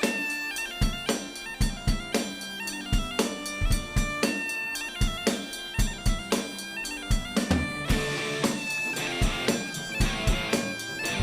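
Instrumental background music with a steady drum beat under sustained, held melody notes.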